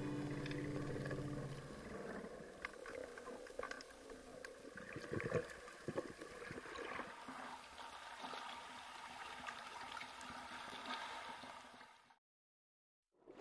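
Faint underwater sound picked up by a submerged camera: gurgling water with scattered small clicks and crackles, after music fades out in the first couple of seconds. It cuts to silence about twelve seconds in.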